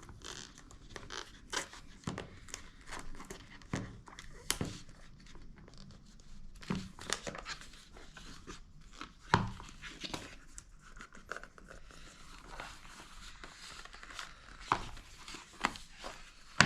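Paper and cardboard packaging of an Apple Watch box being opened by hand: irregular rustling with sharp clicks and light knocks, the loudest about nine seconds in.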